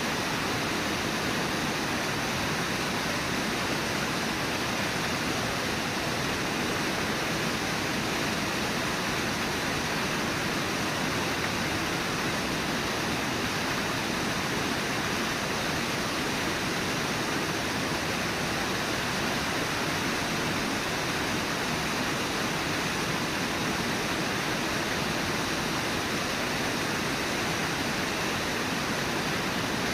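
Brooks Falls, a waterfall on the Brooks River, rushing steadily: an even, unbroken wash of falling water.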